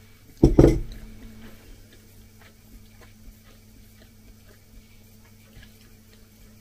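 A single low thump about half a second in, then a quiet small room with faint scattered ticks over a steady low hum.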